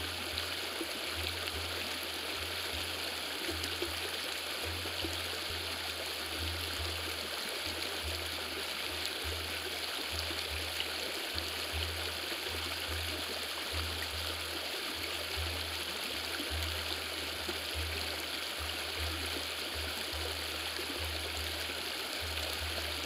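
Recorded river water running steadily, a continuous rushing hiss, with a low, uneven pulsing throb underneath.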